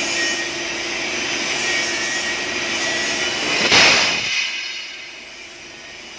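Oxy-fuel cutting torch blowing its oxygen jet through steel plate: a loud, steady rushing hiss that swells a little past the middle, then falls back to a lower hiss.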